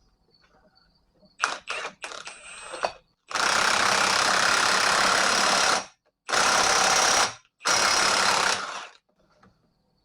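An impact wrench runs in three bursts, the first about two and a half seconds long and the next two about a second each, driving the screw of a ball joint press to push a new wheel stud into a rear axle flange. A few clicks and knocks come before them.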